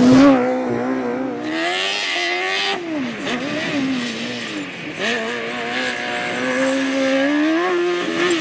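Formula SAE student race car's engine revving up and down as the car drives hard. Its pitch drops sharply just as the car passes close by, then rises and falls every second or two as it accelerates and slows between corners.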